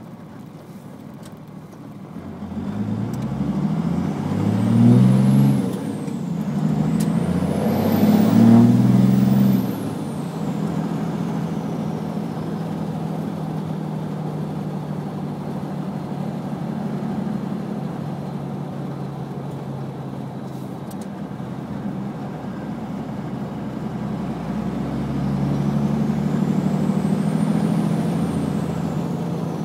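1st-gen Cummins 5.9 inline-six diesel pulling hard through two gears, its HX35 turbocharger, run without a silencer ring, giving a high whistle that rises with each pull and falls away. After the second pull it drops to a steady drone, then near the end the engine pulls again and the turbo whistle rises and falls once more.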